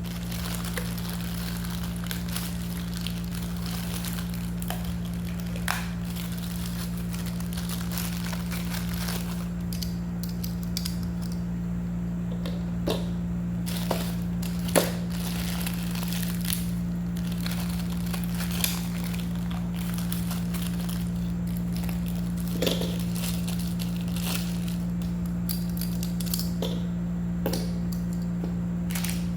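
Scattered small clicks, knocks and crinkles of cabinet boards and plastic screw packs being handled, over a steady low electrical-sounding hum.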